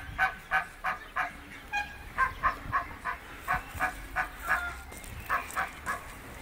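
Domestic geese honking in a fast series of short calls, about three a second, stopping near the end.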